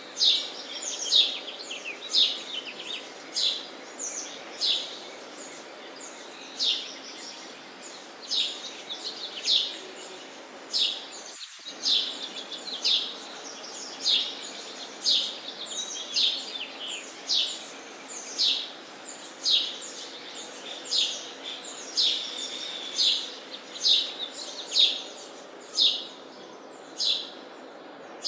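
Sparrows chirping: short, sharp chirps repeating about once a second, over a steady background hiss.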